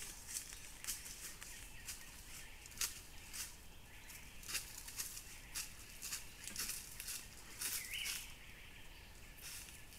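Irregular crackling rustles of dry leaf litter as sambar deer step and browse, over a low steady hiss; a brief bird chirp about eight seconds in.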